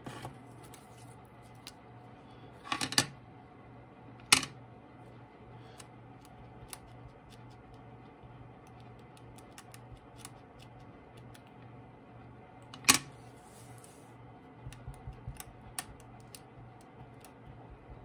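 Small craft tools handled on a desktop: a few sharp plastic clicks, about three seconds in, again a second later and loudest around thirteen seconds, then quick light taps from about fifteen seconds on as a foam ink dauber dabs ink through a stencil onto paper. A low steady hum underneath.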